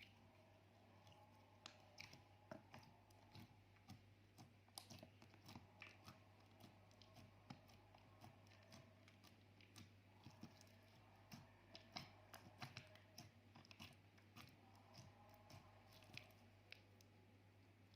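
Slime being worked by hand: quiet, irregular sticky clicks and small pops, with a steady low hum under them.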